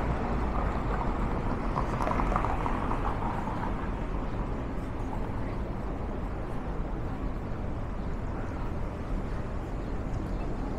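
City street traffic noise, a steady rumble of passing vehicles, a little louder in the first few seconds and then even.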